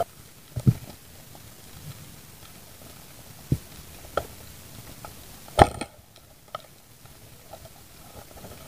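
Underwater sound on a night dive over a rocky seabed: a low steady hiss with a few scattered sharp clicks and knocks, the loudest about five and a half seconds in.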